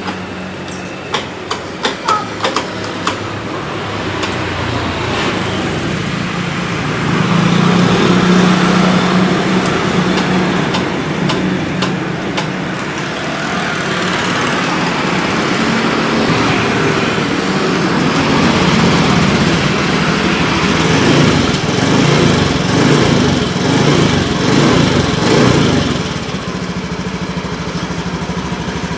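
Motorcycle engine running during a service, revved up and down several times near the end, with a few sharp taps in the first seconds.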